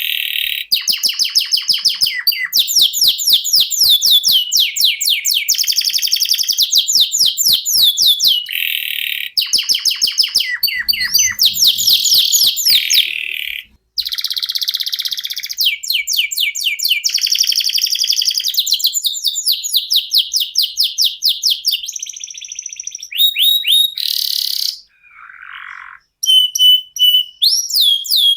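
Domestic canary singing a long, nearly unbroken rolling song of fast trills, switching between higher and lower rolls every second or two, with one short pause about halfway through.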